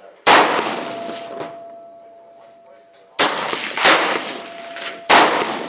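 Four suppressed .308 (7.62x51) rifle shots from an LMT .308 fitted with a Surefire FA762K suppressor. Each is a sharp report trailing off in a long echo off concrete and an overhang. The first comes alone, then three follow about three seconds in, the middle two under a second apart.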